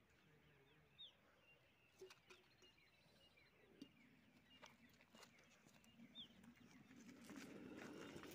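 Faint birdsong, short falling chirps, with a few small clicks. About seven seconds in, a low fizzing hiss rises gradually as the lit ground firecracker begins spraying sparks from inside its metal can.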